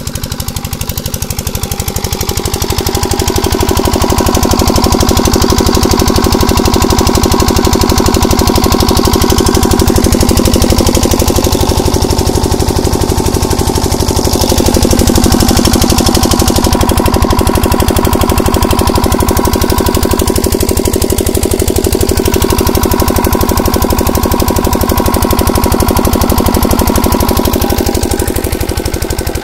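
Usha single-cylinder diesel engine running steadily with a rapid, even beat, driving an irrigation water pump.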